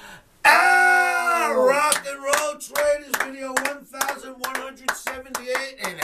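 A man's drawn-out sung shout of 'out!' with a falling end, then rapid hand clapping at about five claps a second over a low hummed note.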